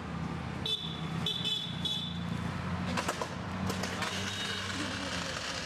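Roadside traffic background: a steady low engine hum, with two short high-pitched toots in the first two seconds and a few sharp clicks about three seconds in.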